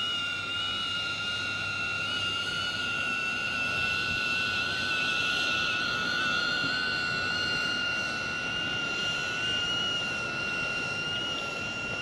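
DJI Avata FPV drone's propellers whining steadily in flight: two high tones, one about double the other, wavering slightly over a steady hiss.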